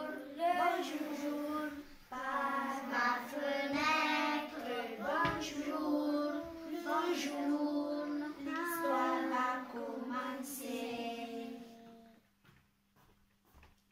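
Children singing a song, which stops about twelve seconds in.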